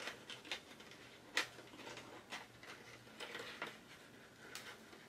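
Faint, scattered small ticks and rustles of thin silver ribbon and a folded paper gift bag being handled as the ribbon is tied, with one sharper tick about a second and a half in.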